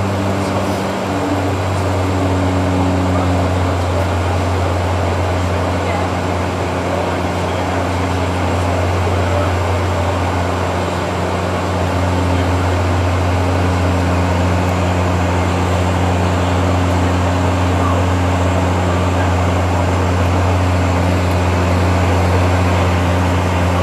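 Airliner cabin noise during the climb after take-off: a steady engine drone with a strong low hum and a broad rush of air, a couple of fainter higher hums shifting slightly in pitch.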